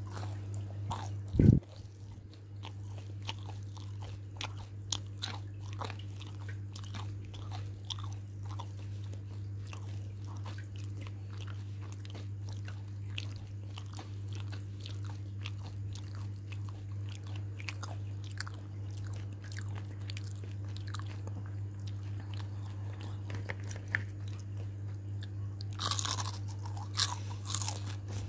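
Close-up crunching and chewing of crispy battered fried chicken, a run of sharp crackles over a steady low hum. There is one loud thump about a second and a half in, and louder, denser crunching near the end.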